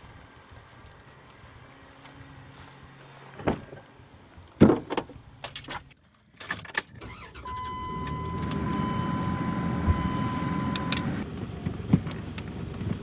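Sounds of someone handling things in a car: a few sharp knocks and rattles, then from about seven and a half seconds a steady low rumble. A steady high tone sounds over the rumble for about three and a half seconds.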